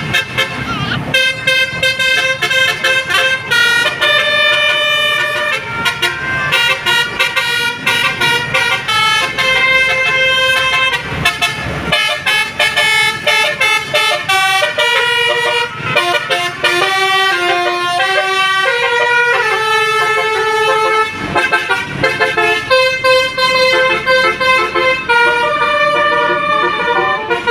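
Telolet basuri air horn set of eighteen trumpets playing a tune, one held horn note stepping to the next.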